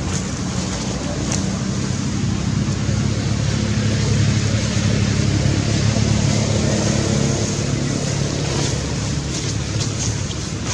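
Steady outdoor background with the low hum of a motor vehicle engine running, growing a little louder around the middle.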